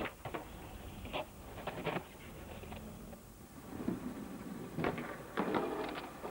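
Skateboard sounds: wheels rolling on pavement, with a string of sharp clacks and knocks from the board's tail and deck hitting the ground, several of them close together near the end.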